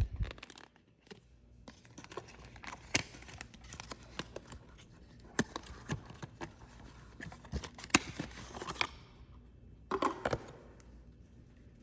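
Packaging of a speed cube being opened by hand: scattered clicks and taps with rustling and crinkling, busiest from about two to nine seconds in.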